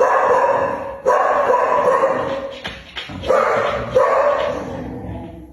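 Chow chow dog giving about four drawn-out whining yelps in a row, each starting loud and fading away over about a second.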